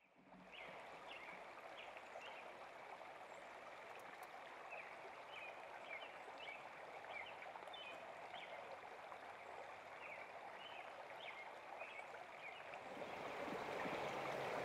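Running water like a stream, with short high chirps scattered over it. It fades in at the start and grows louder near the end.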